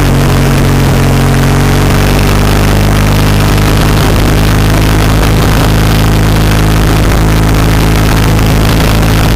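Triumph motorcycle engine running under way at a steady, even speed, recorded from the handlebars, with a constant hiss over it.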